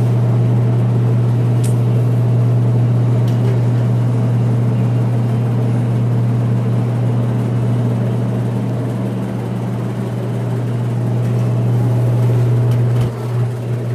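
Truck engine running with a steady low drone. The level dips and wavers about a second before the end.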